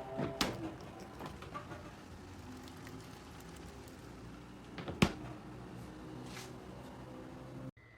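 A few sharp knocks and clicks over a steady low hum, the loudest a single knock about five seconds in; the sound cuts off abruptly just before the end.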